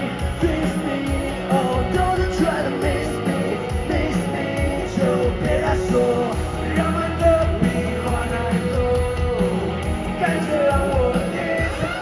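Live band playing a rock-style pop song, with a singer's voice over guitar and drums.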